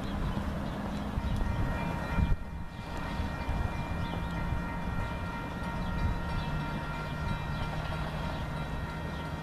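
Railroad grade-crossing warning ringing steadily as a train approaches, over the low drone of a diesel locomotive.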